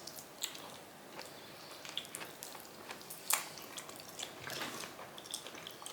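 Raw chicken making scattered wet, sticky clicks and squelches, irregular and short, the loudest about three seconds in.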